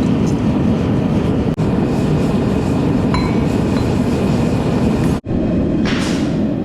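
Loud, steady roar of a forge fire heating the knife steel, with a hammer blow near the end.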